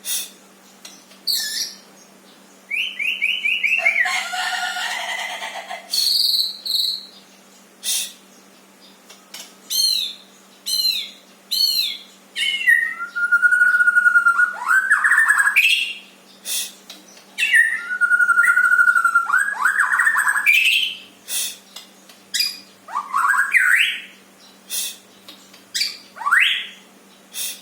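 A bird singing a long, varied song of rising whistled notes, short chirps and clicks, with a harsh, buzzy stretch about four seconds in.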